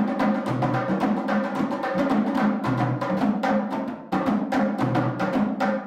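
A group playing djembes by hand together in a fast, steady rhythm of many strokes a second, with a deeper bass note coming round about every two seconds.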